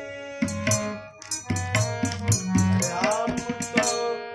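A man singing a classical Kumauni Holi song to harmonium, with tabla strokes keeping the rhythm. The harmonium holds a chord at the start, and about three seconds in the voice slides up into a held note.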